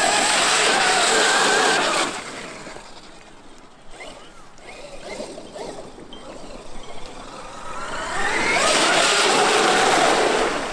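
Traxxas X-Maxx electric RC monster truck driving: its brushless motor whine rises and falls in pitch over tyre noise. It is loud for the first two seconds, fades as the truck moves away, and comes loud again from about eight seconds in.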